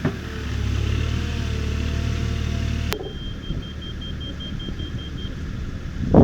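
Tractor engine running with a steady low rumble. About three seconds in, the sound cuts abruptly to a quieter engine hum with a fast, faint high-pitched pulsing beep.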